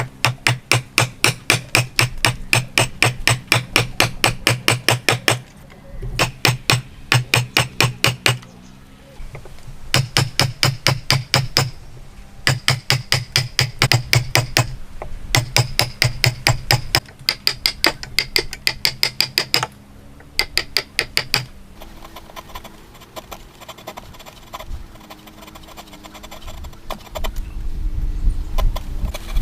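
Rapid, evenly spaced hammer blows in woodworking, about four a second, in runs of a few seconds with short pauses between them. The blows stop about 22 seconds in, leaving quieter, irregular sounds.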